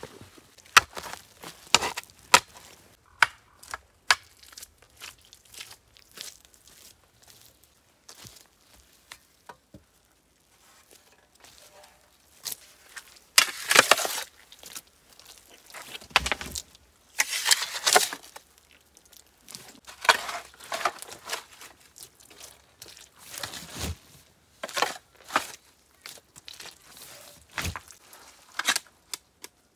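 Shovel blade cutting and scraping into earth, with loose soil thrown off the blade; irregular digging strokes a few seconds apart, the loudest scrapes in the middle and latter part.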